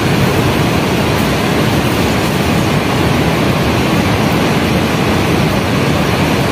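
Loud, steady rushing noise with no distinct events, strongest in the low range.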